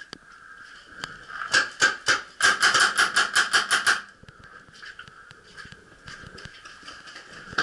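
Paintball marker firing: two single shots, then a rapid string of about ten shots at roughly seven a second.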